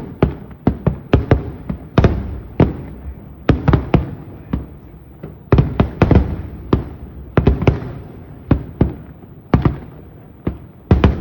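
Aerial fireworks shells bursting in a rapid barrage, a sudden start followed by sharp bangs about two a second, each trailing off in a rumbling echo.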